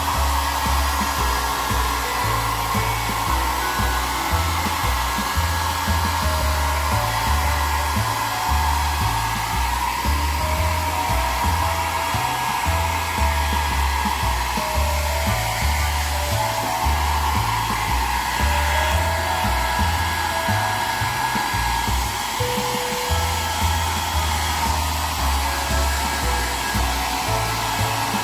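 Hair dryer running steadily, blowing a pet's wet fur dry after a bath.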